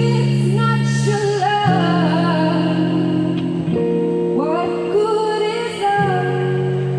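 Music: a woman singing a wavering melody over sustained guitar chords.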